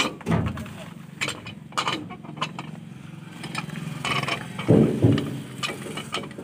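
Metal knocks and clanks from a tractor PTO drive shaft with a universal joint being handled and fitted onto a thresher's splined input shaft, with two louder thumps about five seconds in. A steady low engine hum runs under it.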